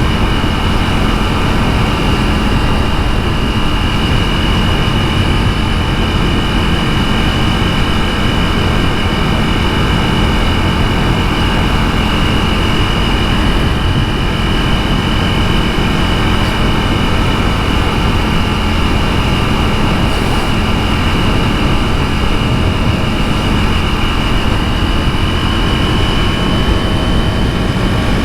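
KTM 390 Duke's single-cylinder engine running at steady revs while cruising, with a constant rush of wind on the microphone.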